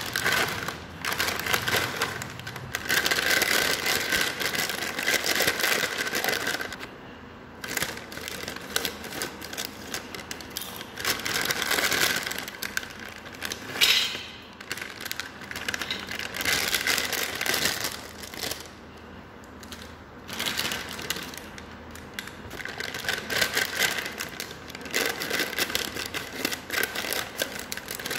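Plastic snack packets crinkling and crackling as they are handled and emptied, with crunchy fried snack sticks falling onto a steel plate. The crackling comes in long stretches, broken by a few quieter pauses.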